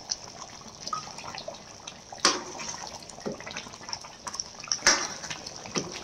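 A metal ladle stirring chicken pieces through thin gravy in a metal kadhai, the liquid sloshing, with two sharp clinks of the ladle against the pan, one about two seconds in and one about five seconds in, and a few lighter knocks.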